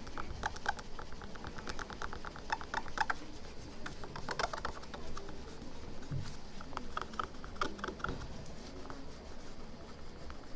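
Light, rapid scratching and ticking as leftover glue is scraped and rubbed off the surface of an iPhone 6 Plus LCD, in quick runs of small clicks.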